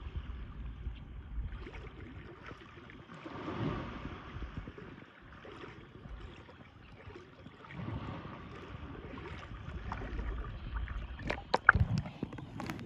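Sea water lapping and sloshing close to the microphone, rising and falling in swells. Near the end come a few sharp splashes and knocks as the phone meets the water surface.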